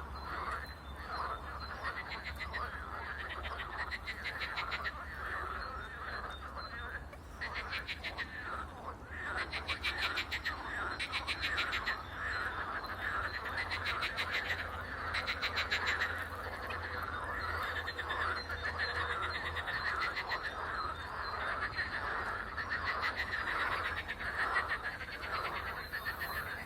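A dense chorus of frogs croaking without pause, with rapid rattling trills standing out above it through the middle stretch. A steady low hum runs underneath.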